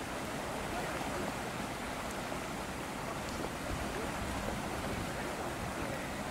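Steady rushing outdoor background noise with faint, indistinct voices in the distance.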